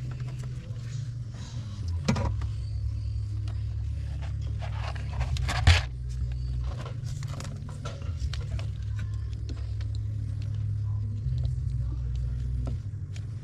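A steady low hum runs throughout, with scattered knocks and scrapes from work or handling. A sharp knock about six seconds in is the loudest sound.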